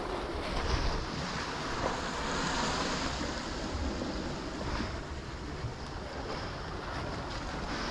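Sea surf washing against a rocky coastal point, with wind blowing across the microphone; the rushing noise swells and eases a little.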